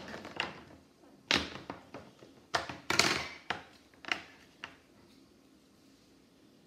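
A quick series of sharp knocks and clatters, about seven in all, as things are handled and set down. A couple of the knocks are followed by a brief scrape. The knocking stops about five seconds in.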